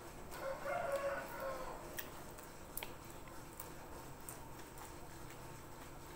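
A pitched call lasting about a second and a half, starting just after the beginning, followed by a few faint clicks and smacks of eating with the hand.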